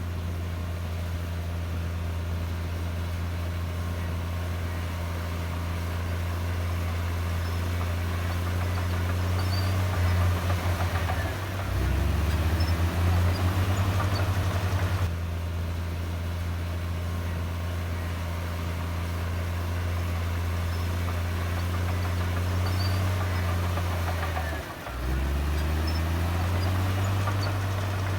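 Heavy diesel earthmoving engine running steadily. It twice sags in pitch and climbs back, once partway through, followed by a few louder seconds, and again near the end.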